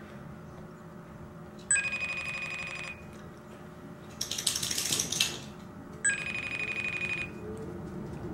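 FaceTime call ringing out through an iPhone's speaker while it waits for an answer: two trilling rings about a second long, some four seconds apart. A short hissy burst comes between them.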